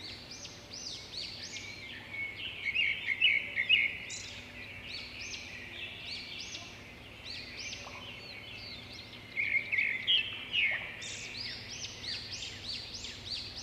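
Wild birds chirping and singing, many short arched calls overlapping continuously, with busier, louder flurries about three seconds in and again around ten seconds.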